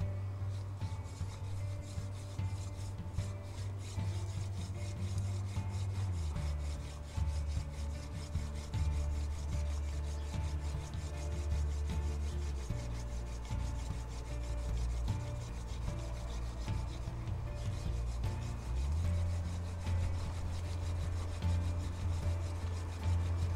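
Hand-drill friction fire: a dry mullein spindle spun back and forth between the palms, its tip rubbing and grinding in a notched ivy hearth board. Under it runs background music with sustained low notes that change every few seconds.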